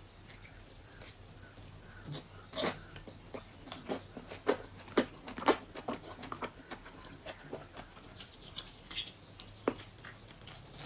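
Close-miked eating: wet smacking, sucking and chewing on a large oily piece of mutton on the bone, with a run of sharp, loud smacks between about two and six seconds in.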